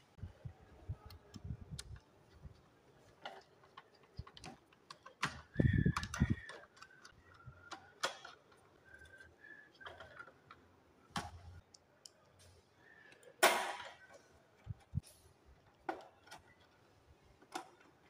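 Screwdriver working the terminal screws of a four-pole main breaker in a metal distribution board, along with handling of the breaker: scattered small clicks and taps, with louder knocks and scrapes about five and a half seconds in and again about thirteen seconds in.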